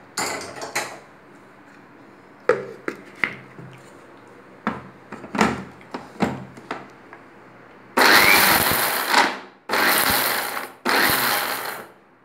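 Knocks and clinks of a steel mixer-grinder jar and its lid being handled and set on the base. About eight seconds in, an Indian mixer grinder (mixie) runs in three short pulses of about a second each, grinding roasted dal powder together with garlic, asafoetida and salt.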